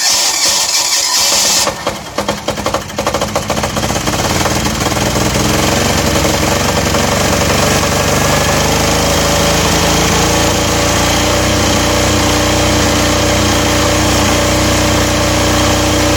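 Aurora AGI6500DE diesel generator's electric starter cranking the cold engine for about a second and a half. The engine catches, fires unevenly for a couple of seconds, then settles into steady running.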